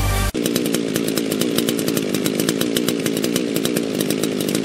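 Music cuts off about a third of a second in, replaced by a ported two-stroke chainsaw engine running steadily at an even speed.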